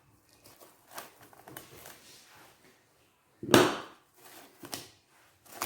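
Handling sounds as a bowl is covered: scattered light clicks and rustles, with one louder rustle or clatter about three and a half seconds in.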